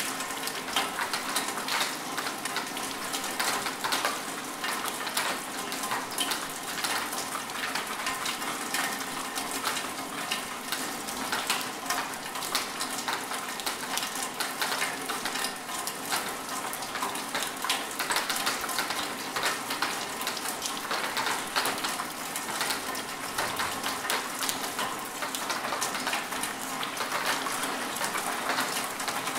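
Rain falling steadily: a dense hiss of countless drops, with many separate drop ticks heard through it.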